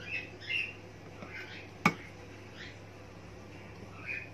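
Cooking oil glugging out of a bottle as it is poured into a food processor's feed tube: a few short squeaky gurgles, with a single sharp click about two seconds in, over a low steady hum.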